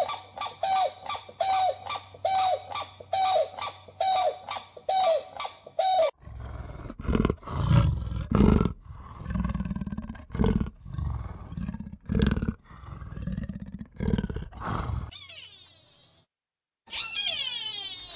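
Grey crowned cranes honking in a steady series, a call about every 0.7 seconds, for about six seconds. Then an animal gives a run of deep, low roaring calls for about nine seconds. A short burst of high chirping comes near the end.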